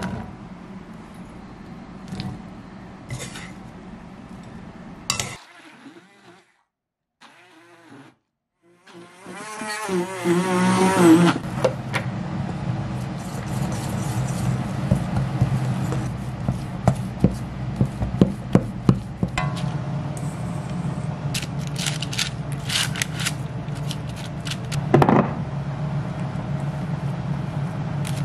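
A small electric kitchen motor starts with a rising whine about ten seconds in and then runs steadily, under repeated clinks and scrapes of a utensil against a metal bowl. Before that, a few light clicks and a short stretch of near silence.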